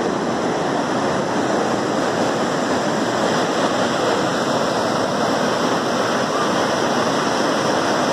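Waterfall and rocky stream cascades rushing steadily: a constant, even noise of falling water with no let-up.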